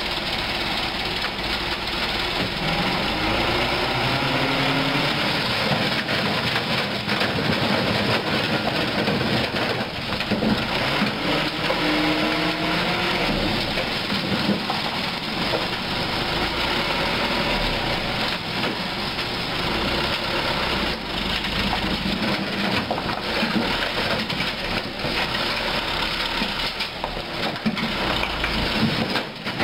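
Mitsubishi Colt dump truck's engine running with the bed raised to tip, while rocks slide and tumble out of the bed onto the pile in a clatter of knocks.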